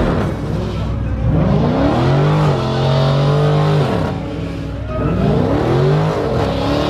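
A car engine revved hard twice. It climbs and holds at high revs for over a second, drops back, then climbs and holds high again near the end.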